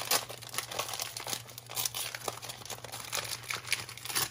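Clear plastic packaging sleeve crinkling and crackling in the hands as a paper embellishment is slid out of it, a dense run of irregular crackles.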